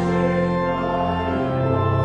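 Church organ playing sustained, held chords, with the chord and bass note changing about a second and a half in.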